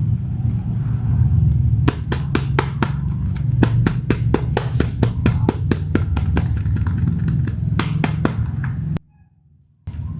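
Toys being handled during an unboxing: a series of sharp, irregular clicks and taps, about three or four a second, over a steady low rumble of handling noise. Everything cuts out suddenly for about a second near the end.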